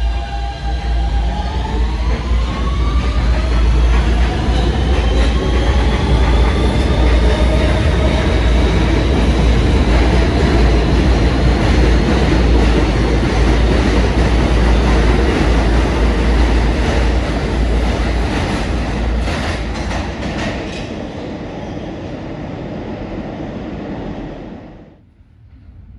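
R160 subway train pulling out: the traction motors' whine climbs in pitch as it accelerates, over a heavy rumble of wheels on rail. A quick run of rail-joint clicks comes as the last cars pass, and the sound falls away sharply near the end as the train enters the tunnel.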